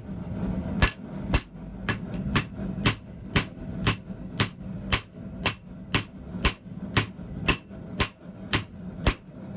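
Hand hammer striking a hot bar of D2 air-hardening tool steel on an anvil, steady blows at about two a second over a low hum. The steel stays very hard even at forging heat, so it moves slowly under the hammer.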